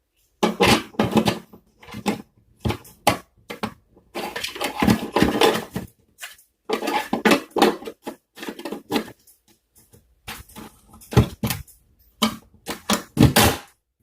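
The parts of a taken-apart power bank being handled and knocked together: irregular clattering and scraping in short bursts.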